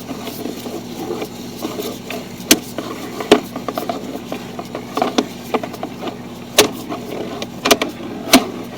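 Sewer inspection camera rig being worked through the pipe: irregular sharp knocks and clicks, about six in all, over a steady low hum.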